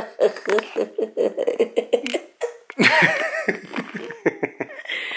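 People laughing: a run of short, rhythmic laughs, then louder, higher-pitched laughter about three seconds in.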